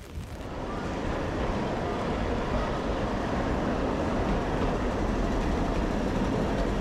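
Vintage green ATAC street tram running past close by on its rails: a loud, steady rumble that builds up in the first second.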